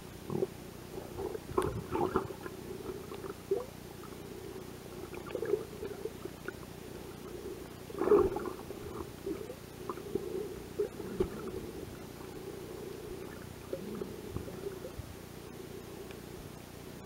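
Muffled underwater sound picked up through a submerged camera: a steady low hum with irregular soft knocks and rumbles from the camera being handled and water moving around it. The knocks are loudest about two seconds in and again about eight seconds in.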